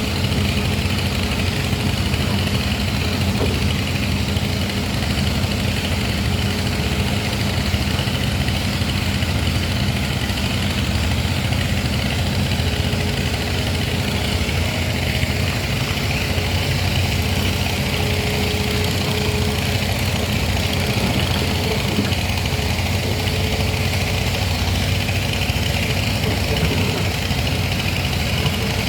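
Excavator's diesel engine running steadily, with a faint whine that comes and goes.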